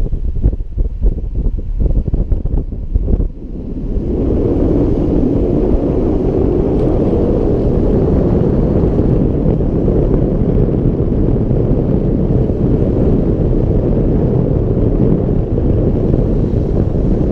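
Ocean surf washing and foaming among shoreline rocks, with wind buffeting the microphone. The first few seconds are gusty and uneven; about four seconds in it settles into a steady, dense rush.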